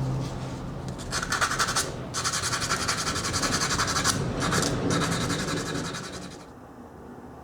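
Fast, even scratchy rubbing strokes, about four or five a second, in runs with short breaks near two seconds and four seconds in, stopping about six and a half seconds in: hand abrasive work on the metal of an antique samovar under repair.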